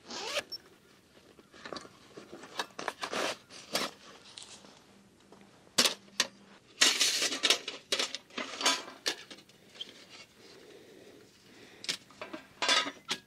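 Stainless steel folding wood-burning camp stove taken from its cloth pouch and unfolded, its thin metal panels clinking and clattering as they are slotted together. There is a run of sharp clicks and handling noise, busiest around the middle.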